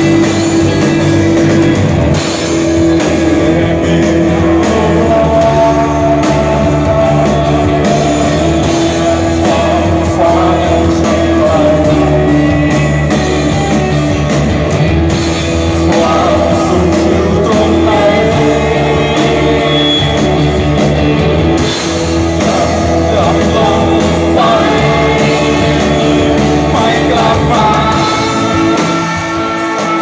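Live rock band playing loud: a male singer singing over electric guitar and drums.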